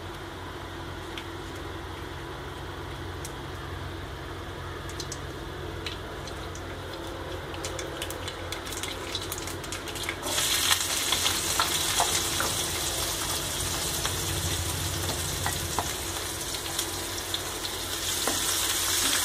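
Mustard seeds starting to pop in hot oil in a non-stick pan, scattered sharp crackles over a low steady hum. About ten seconds in, the oil breaks into a loud steady sizzle as curry leaves and then chopped small onions go in and are stirred, with a few clicks of the spoon.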